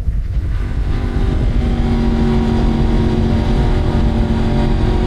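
Yamaha R1M's crossplane inline-four running through its aftermarket exhaust. The engine holds a steady note that settles in less than a second in, over a dense low rumble.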